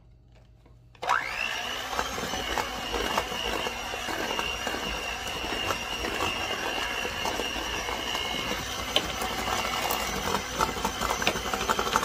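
Electric hand mixer switched on about a second in and running steadily, its beaters whirring through cream cheese and powdered sugar, with scattered light clicks.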